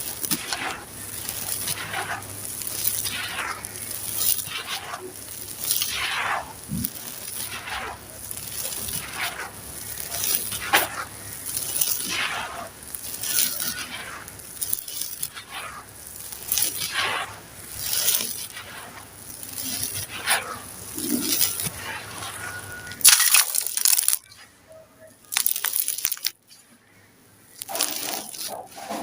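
Dry, gritty charcoal sand-cement crumbling and crunching in a steady run of gritty strokes, about one a second. Near the end comes one louder crunch, then a brief lull.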